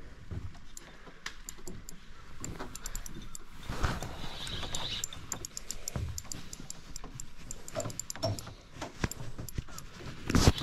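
Fishing gear being handled: irregular light clicks and rustling, with a single loud knock about ten seconds in.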